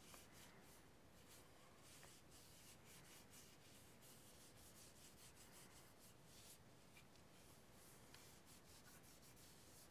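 Faint rubbing of a rag soaked in linseed oil over a charred wooden atlatl, as the oil is worked into the blackened wood in many quick strokes.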